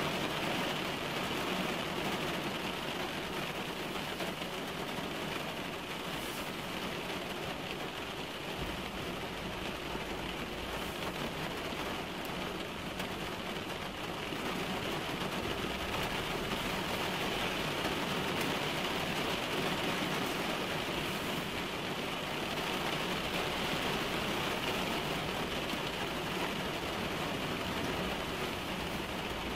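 Rain falling on a car's roof and windscreen, heard from inside the cabin as a steady, even patter of drops.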